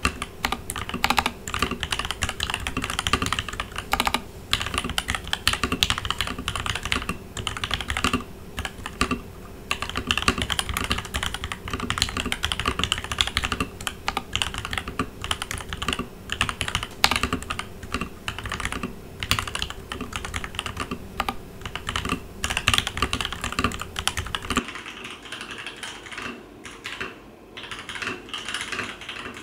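Continuous fast typing on a Leopold FC900R PD mechanical keyboard with linear Gateron Ink Black switches, stock keycaps and a Dacron-dampened case: a dense, irregular stream of key clicks. Near the end the sound turns thinner, losing its deep and its bright parts, as the recording switches to the camera's microphone.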